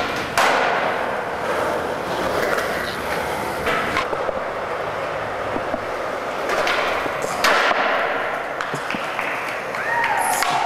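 Skateboard wheels rolling on smooth concrete, with several sharp clacks of the board popping and landing: one just after the start, one about 4 s in, and two close together about 7 s in. A brief falling squeak comes near the end.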